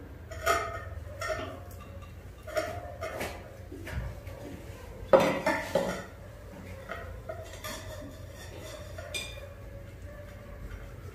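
Kitchen knife and dishes knocking and clinking while vegetables are cut: about eight irregular knocks, the loudest a cluster about five seconds in, over a low steady hum.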